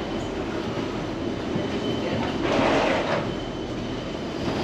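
Steady rumbling, rattling noise of footsteps on an airport jet bridge beside a parked airliner, with a thin high whine throughout and a louder rush about two and a half seconds in.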